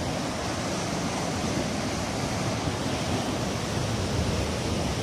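Heavy ocean surf breaking at the foot of a sea cliff: a steady, even wash of noise.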